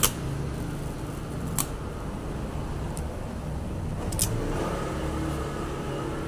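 Wide adhesive tape being handled and stuck onto paper: a few short, sharp clicks and crackles about a second or so apart, over a steady low background hum.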